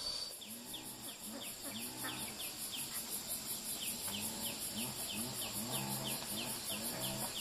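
Insects chirring in the countryside: a fast, evenly pulsing high trill, with a short downward chirp repeating about twice a second and soft low calls underneath.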